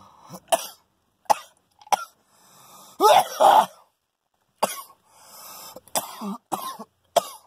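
A man coughing in a string of short, separate coughs, with a louder double cough about three seconds in, after exhaling a hit of cannabis smoke.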